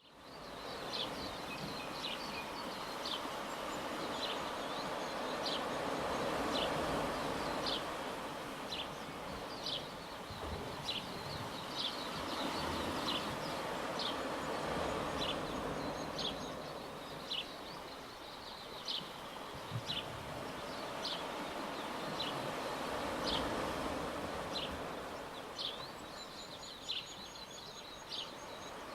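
Small sea waves washing in slow swells that rise and fade every few seconds, with a steady run of short, high chirps about one a second. A faint, high falling trill comes three times.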